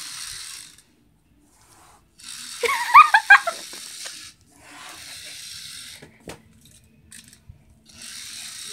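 Small motor of a motorised toy tarantula running in bursts, starting and stopping abruptly four times, each run lasting one to two seconds. About three seconds in, a brief burst of high wavering squeals is the loudest sound.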